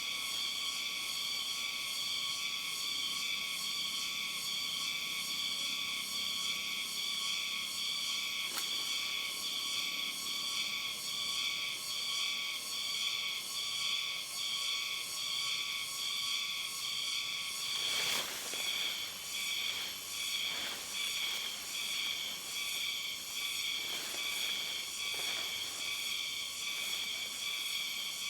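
Steady, rapidly pulsing high-pitched chorus of night insects, with a few short knocks or clicks about two-thirds of the way through.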